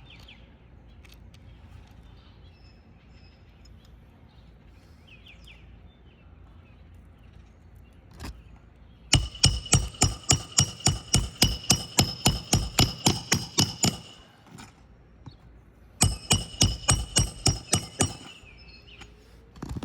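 Hammer driving roofing nails to secure an asphalt shingle back in place. It comes as two runs of quick, ringing strikes, about four a second: the first lasts about five seconds, and the second about two seconds comes a little later.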